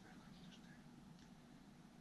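Near silence: faint outdoor background with a steady low hum and a couple of faint, short high chirps.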